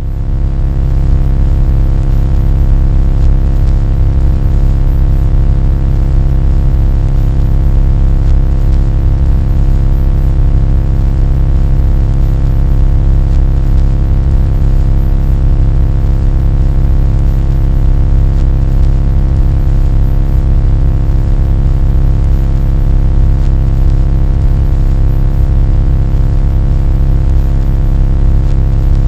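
A loud, steady, low-pitched droning hum made of many stacked tones, unchanging throughout, with a faint thin high whine above it. It starts abruptly right at the beginning.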